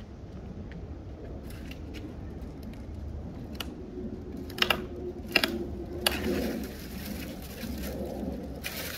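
Long-handled loppers cutting dead branches overhead: a few sharp snaps about halfway through, then twigs rustling.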